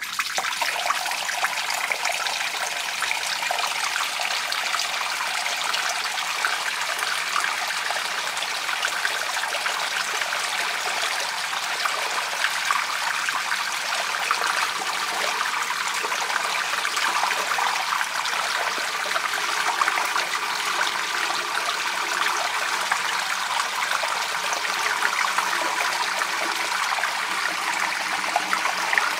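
A steady stream of water pouring from the end of a pipe and splashing onto a wet stone surface, an even, continuous splashing.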